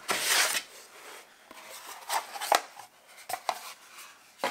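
A wooden box sliding out of its sleeve with a brief scraping rustle. A few light knocks of wood on a tabletop follow.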